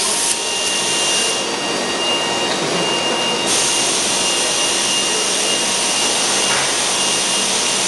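Steady rushing hiss of compressed-air shop tools running, with a faint high whine that comes and goes.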